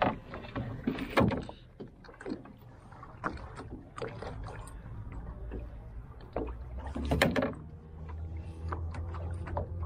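Knocks and rattles of a walleye being handled and netted in an aluminium fishing boat, with sharper knocks about a second in and about seven seconds in. A low rumble comes in near the end.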